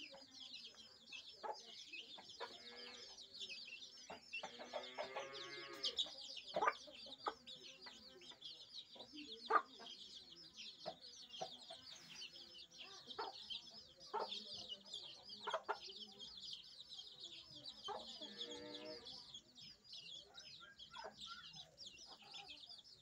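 A brood of chicks peeping constantly in a high, dense chatter, while the mother hen clucks now and then, with a couple of longer drawn-out calls about five seconds in and near the end.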